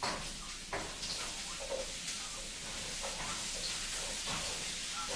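Food frying in a pan: a steady high sizzle with a few small clicks and knocks of cooking.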